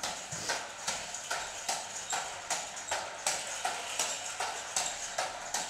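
Homemade air-powered car's syringe-cylinder engine running on compressed air, its slider valves exhausting in steady, regular puffs, about three a second.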